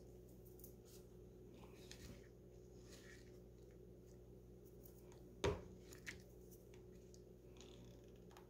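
Quiet handling sounds of gluing buttons onto felt with a hot glue gun, faint rustles over a low steady hum, then a sharp knock about five and a half seconds in and a smaller click just after it.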